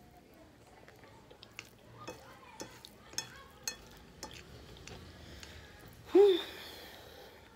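Eating sounds of someone chewing pasta by hand: small wet smacks and clicks every half second or so. About six seconds in comes a short, loud cry whose pitch rises and then falls.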